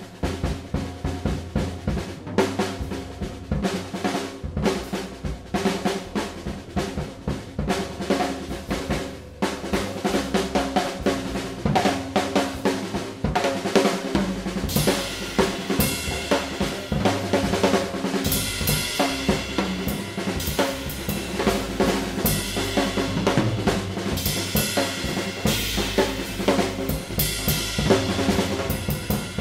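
Background music with a drum-kit beat over sustained pitched notes, growing louder about a third of the way in and adding cymbals about halfway.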